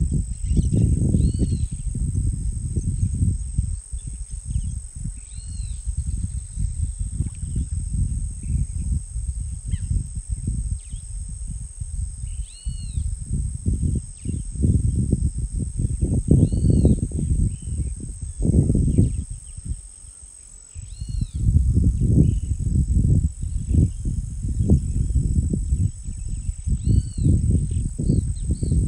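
Wild outdoor soundscape: insects keep up a steady high drone while a bird repeats a short arched call every few seconds. The loudest part is a gusty low rumble of wind on the microphone, which dies down for a moment about two-thirds of the way through.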